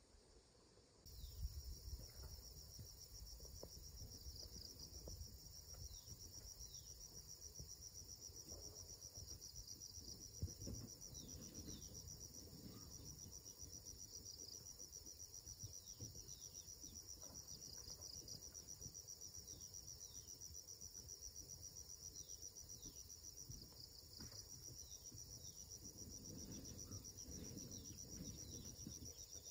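Faint steady insect chorus: a high pulsing trill, with many short falling chirps scattered through it.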